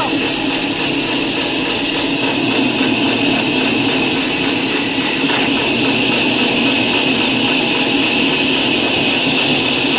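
Woodworking power tool running steadily.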